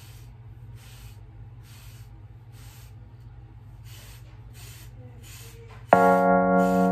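Hairbrush strokes through short waved hair: a soft bristly swish about once a second. About six seconds in, music comes in with a loud held keyboard chord.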